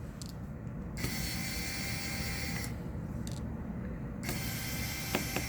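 Small electric screwdriver whirring as it backs out the screws of a phone, running for about three seconds from about a second in. A couple of small clicks follow near the end.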